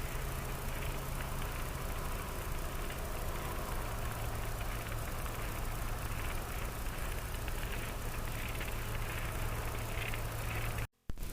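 Engine idling: a steady low hum under an even hiss, the hum dropping slightly in pitch about four seconds in. The sound cuts out completely for a moment near the end.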